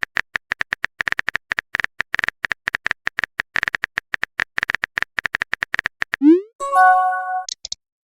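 Chat-typing sound effect: a rapid, uneven string of short beeps at one pitch, then about six seconds in a quick rising swoop and a message chime.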